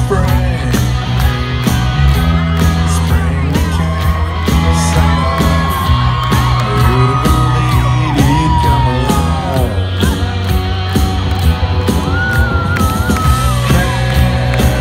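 Live band playing loud country-rock, with electric guitar lead lines gliding over a steady bass and drum beat, and shouts from the crowd.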